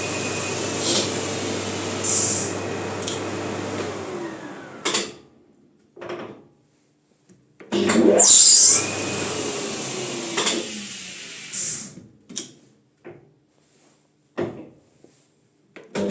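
Maximat lathe spinning a bicycle disc-brake rotor: a steady running hum that slides down in pitch as the spindle slows to a stop with a knock, as the disc brake is tried. About eight seconds in it starts again with a loud, hissing burst lasting about a second, runs, and slows down once more. Scattered clicks and knocks follow.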